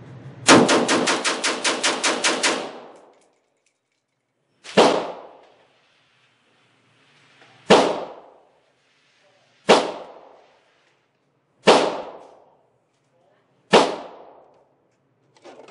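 FEG AMD-65 rifle in 7.62x39 firing on an indoor range. A fast string of about a dozen shots comes in two seconds, then five single shots about two seconds apart, each with a short echo.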